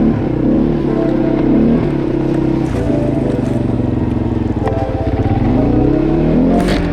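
ATV engine running, its pitch rising and falling with the throttle.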